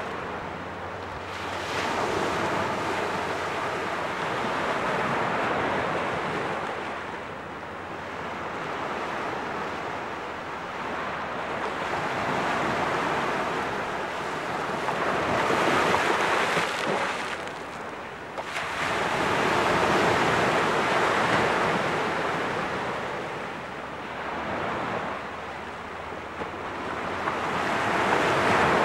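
Small waves breaking and washing up onto a sandy shore among low rocks, the surf swelling and fading every few seconds.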